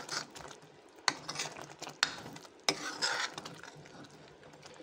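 Metal spoon stirring a thick, wet mixture of grated bottle gourd and milk powder in a metal kadhai, scraping the pan, with three sharp knocks of the spoon against the pan at about one, two and nearly three seconds in.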